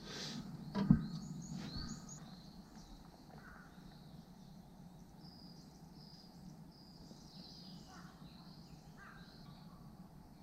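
Birds calling on and off outdoors, short high calls with a few lower caw-like notes. A sharp knock about a second in, amid brief rustling handling noise, is the loudest sound.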